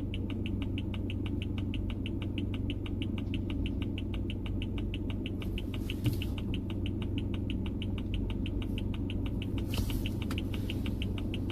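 Rapid, even ticking, about seven ticks a second, over a steady low hum.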